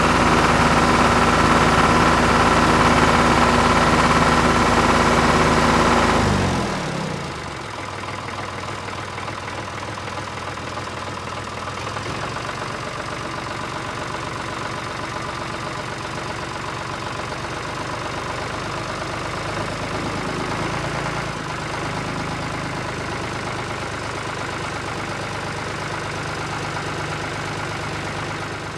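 Engine of a small outrigger fishing boat running steadily, then throttled back about six seconds in, its pitch falling as it drops to a quieter, lower idle.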